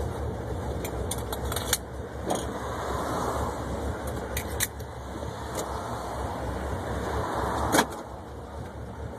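1972 Oldsmobile 442's V8 idling with a steady low rumble, heard from inside the car, while something loose clicks and jingles now and then; one sharper knock comes near the end.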